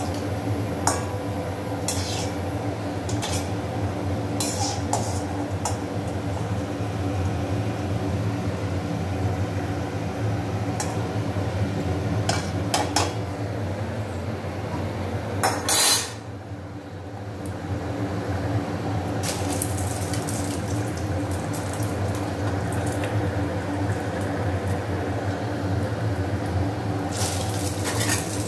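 Perforated steel skimmer clinking and scraping against a stainless steel kadai, many short metallic clicks, over the steady sizzle of egg-dipped bread slices deep-frying in hot oil. A brief loud burst comes about halfway through.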